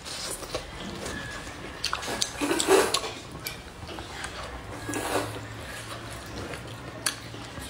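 Close-up wet mouth sounds of a person eating hot beef rice-noodle soup: chewing a mouthful of greens and sucking in noodles, with small scattered clicks and a couple of louder wet slurps.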